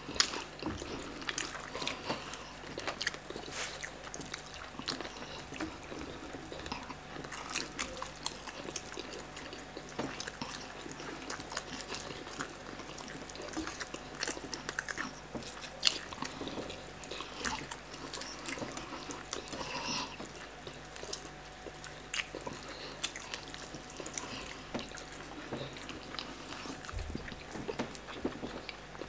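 Close mouth sounds of people eating roast chicken by hand: chewing, lip smacking, and meat being pulled off the bone. Many small wet clicks run all through.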